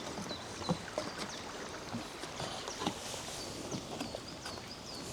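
Water flowing steadily in a forest stream, with a small bird repeating short high chirps over it and a few faint knocks.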